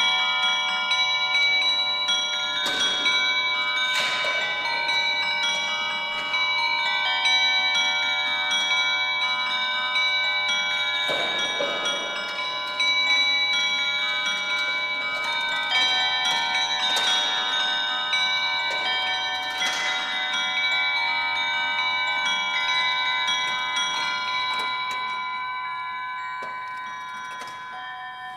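Clockwork silver swan automaton's bells chiming a slow tune, many ringing notes overlapping, with a few sharper strikes. The ringing fades away near the end.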